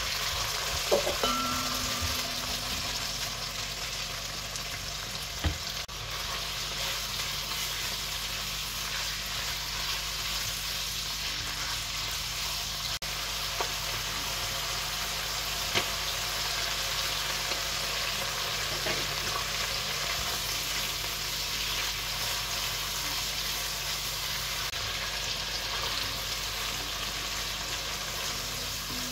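Beef pieces frying in hot oil in a kazan: a steady sizzle as the meat is stirred with a spatula, with a few short sharp clicks.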